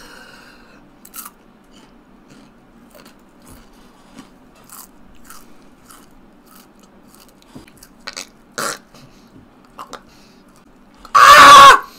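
A person chewing a black scorpion: scattered soft crunches and clicks of the mouth at work. Near the end comes a loud, strained vocal cry.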